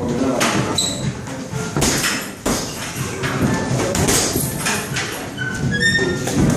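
Boxing gloves landing punches during sparring: irregular thuds and smacks, several in quick succession.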